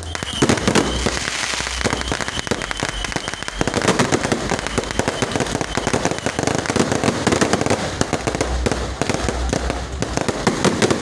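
Fireworks going off in a continuous, rapid barrage of crackling pops and bangs.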